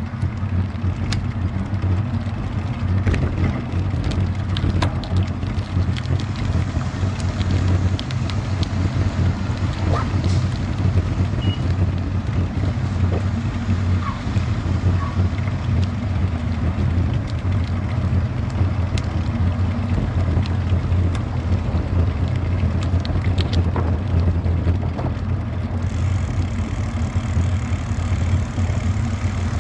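Riding noise picked up on a bicycle-mounted action camera: a steady low rumble of wind and tyres on the road, with scattered small clicks and rattles.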